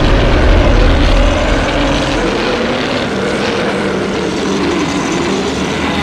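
Custom-made Godzilla roar sound effect: one long drawn-out roar with a deep rumble under its first two seconds, its pitch dipping and rising again near the end.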